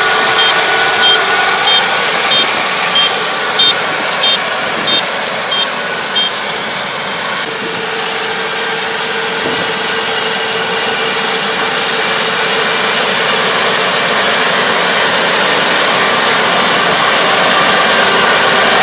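Kubota DR575 five-row rice combine harvester's diesel engine and threshing machinery running steadily while harvesting. A high electronic beeper sounds about every 0.6 s through the first six seconds, then stops.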